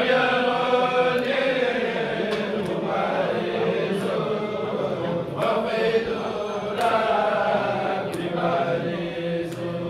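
A kourel, a group of men, chanting Sufi xassida verses together in long drawn-out phrases with gliding, held notes, pausing briefly between lines.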